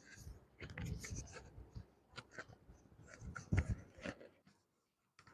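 Cloth rustling and rubbing as a patient's body is handled during a chiropractic adjustment, with a soft thump about a second in and a louder one past the middle.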